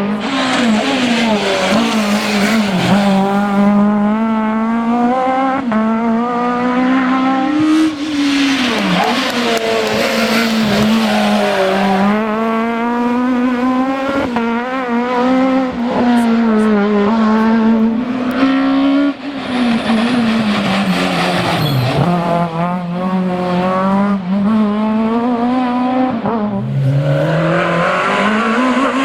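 Renault Megane Maxi rally car driven hard at high revs. The engine note climbs and falls through repeated gear changes and lifts off the throttle, with a few deeper dips as it slows.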